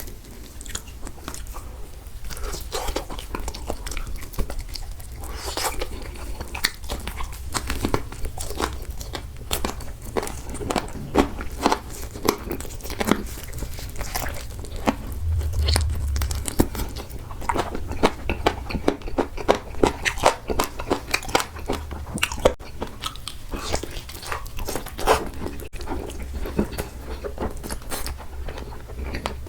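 Close-miked eating sounds: a person biting and chewing food with wet, irregular smacking and crunching clicks. There is a brief low rumble about halfway through.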